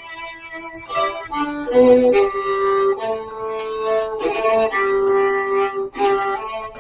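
Solo violin playing a slow melody of held notes that change every half second to a second.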